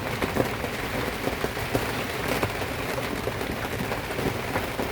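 Tropical rain falling on a sailboat's cockpit: a steady hiss with many separate drops ticking on the boat.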